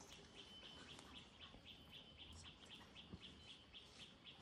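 Near silence: faint forest ambience with a steady run of high chirps, about four a second, from a small bird or insect.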